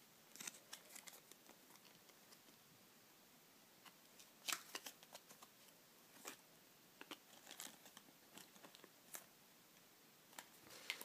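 Faint, sparse clicks and rustles of hands handling a foam squishy toy and its card hang tag.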